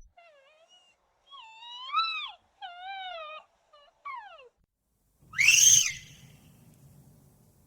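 A creature-like voice giving a run of short wailing cries that bend up and down in pitch, the loudest about two seconds in, then a louder harsh shriek about five seconds in with a low rumble trailing after it.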